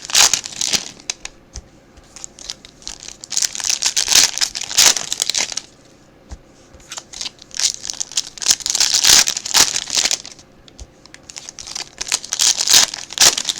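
Foil trading-card pack wrappers being torn open and crinkled in the hands, in four crackly bursts of a second or two each with short pauses between.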